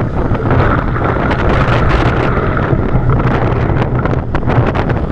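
Strong wind buffeting the microphone of a camera on a sea kayak's deck, over breaking surf and water splashing around the hull and paddle as the kayak runs in through the waves.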